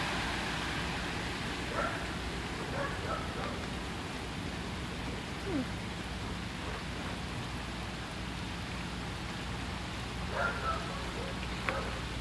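Steady hiss of rain and running water over a flooded street.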